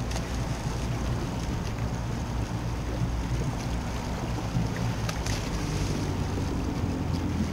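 Boat engine idling with a steady low hum, under wind on the microphone, with a couple of short clicks, one about five seconds in.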